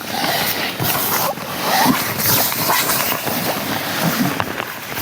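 Loud rustling and knocking close to the microphone, with many short clicks through it.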